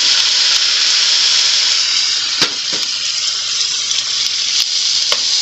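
Freshly added diced tomato and bell peppers sizzling in hot butter in a frying pan, a steady hiss. A few light knocks of a wooden spoon against the pan come through, about midway and near the end.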